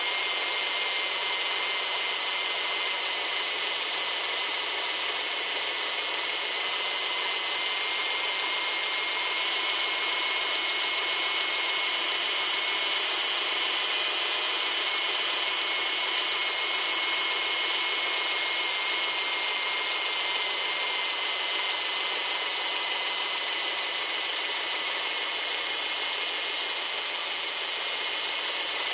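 Subaru EJ253 2.5-litre flat-four engine running at a steady speed: an even mechanical noise with faint steady whining tones and little low end.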